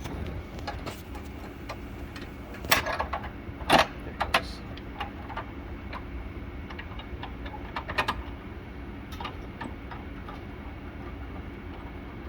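Scattered clicks and knocks of hardware being handled while a lamp is fitted into a Christie cinema projector, the sharpest bunched about three to four seconds in and again near eight seconds, over a steady low hum.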